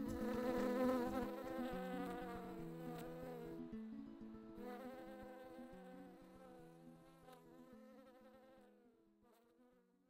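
A bee buzzing close by as it works poppy flowers, wavering in pitch and fading away toward the end.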